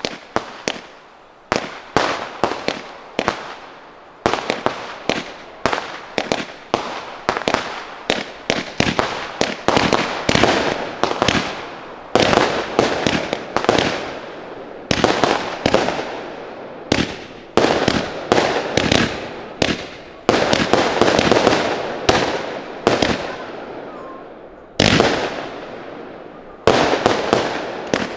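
Consumer firework batteries firing a rapid series of shots, several bangs a second, each bang trailing off in a hiss of bursting effects.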